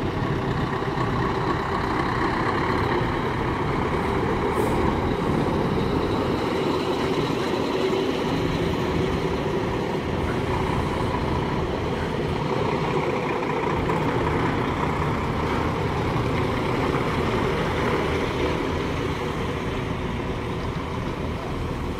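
Heavy lorries pulling away one after another in a convoy, a Scania tractor unit, a Volvo with a low-loader trailer and a MAN truck, their diesel engines running in a steady, unbroken mix.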